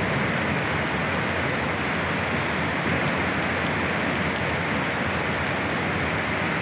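Muddy floodwater rushing past in a steady torrent, carrying debris.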